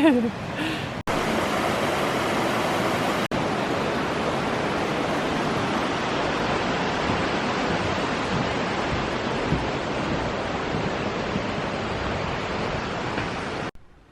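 Steady rush of fast-flowing water from a beck or waterfall, cutting off abruptly near the end.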